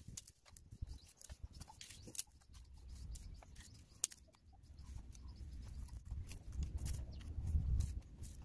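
Dry twigs being picked up and dropped into a cardboard trailer bed, a scatter of light clicks and rustles, over a low rumble that grows louder near the end.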